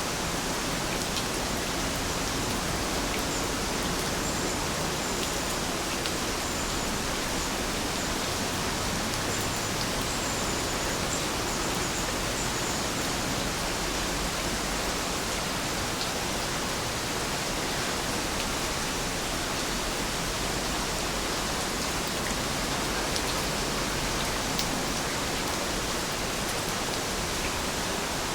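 Steady rain falling: an even, unbroken hiss with occasional drop clicks. A few faint high chirps sound in the first half.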